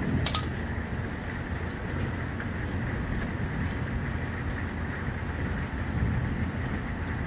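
A brief metallic clink shortly after the start, then steady hiss-like noise with a few faint small ticks, as metal parts are handled.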